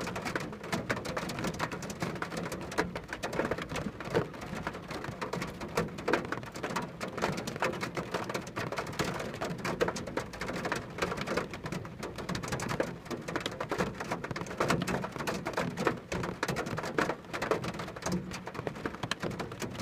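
Steady rain falling, with many irregular drop hits on a surface.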